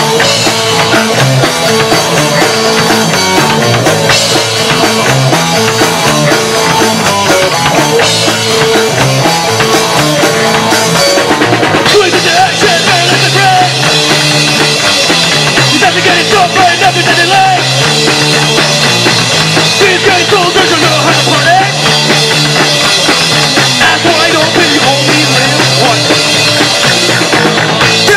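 Live rock band playing loud punk-style rock on electric guitars and drum kit, with no vocals. The riff changes about twelve seconds in.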